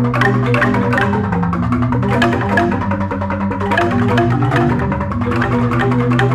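Jegog, a Balinese bamboo gamelan of large struck bamboo-tube marimbas, playing a fast, busy tabuh of rapid mallet strokes over a deep, sustained bass.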